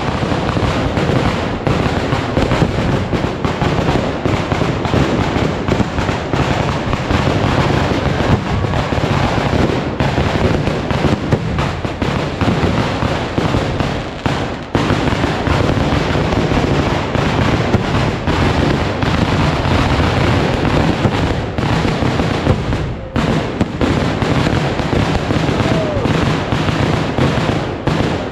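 Kerala temple-festival fireworks (pooram vedikkettu): a dense, rapid barrage of firecracker and aerial-shell explosions going off nonstop, with a brief lull about 23 seconds in.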